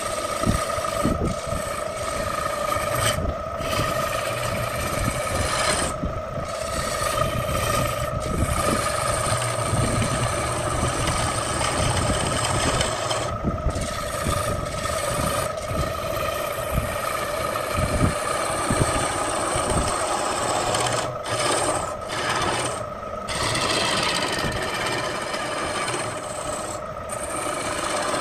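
Wood lathe running with a steady hum while a hand-held turning tool cuts a spinning wooden bowl, giving a continuous scraping hiss of shavings coming off. The cutting sound drops out briefly several times as the tool eases off the wood.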